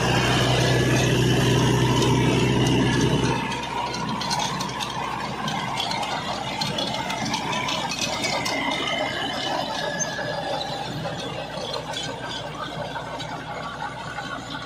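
Mahindra 475 DI tractor's diesel engine running under load while pulling a rotavator through hard soil. It is loud and steady for the first few seconds. After a sudden change a little over three seconds in, the rotavator's clattering and rattle dominate, with a steady metallic squeal over them.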